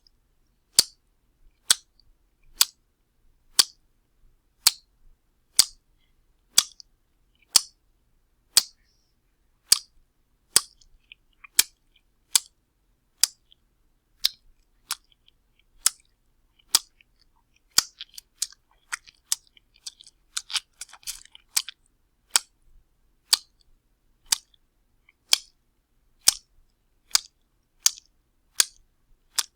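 Wet slap sound effect repeated as short, sharp smacks about once a second. A flurry of quicker, softer wet smacks comes about two-thirds of the way through.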